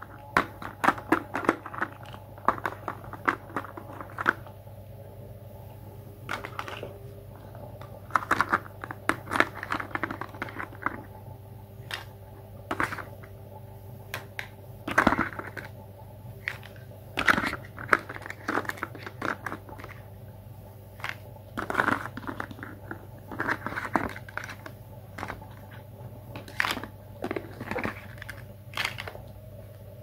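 Toy plastic pizza slices and a plastic spatula being handled against a plastic pan: irregular clicks, taps and scraping rattles, with a steady low hum underneath.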